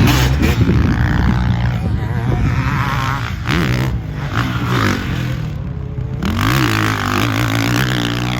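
Motocross bike engine running and revving up and down repeatedly, loud throughout.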